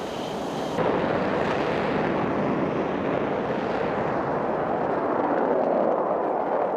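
Jet engine roar of a Sukhoi Su-57 fighter taking off, a steady rushing noise that jumps louder just under a second in and swells toward the end.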